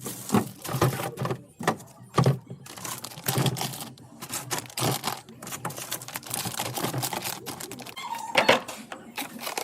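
Containers, jars and bottles being set down and arranged on refrigerator shelves: a busy, irregular clatter of clicks and knocks.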